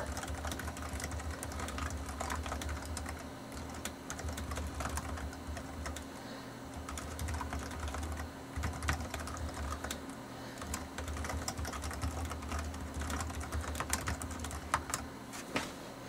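Typing on a Lenovo ThinkPad USB keyboard with TrackPoint: its low, laptop-style keys click in quick, irregular runs with short pauses. A low hum underneath comes and goes.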